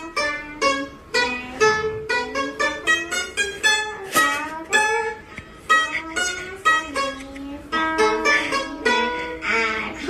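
Background music: a plucked-string instrument playing a quick, bouncy melody of short notes.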